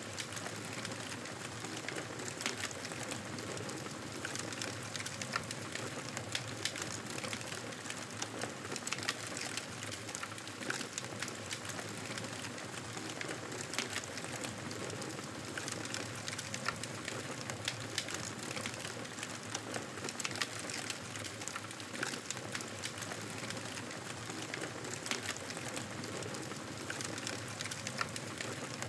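Campfire burning steadily, crackling with many small irregular snaps over a constant hiss.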